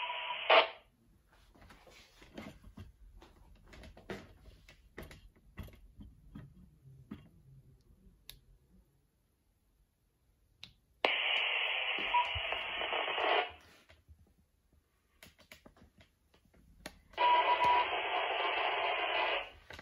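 Handheld ham transceiver's speaker giving out the amateur repeater's reply: three stretches of noisy, narrow-band radio audio carrying a faint steady beep, the first cutting off about half a second in, the others about two to three seconds long, about 11 and 17 seconds in. Faint clicks and handling noises come between them.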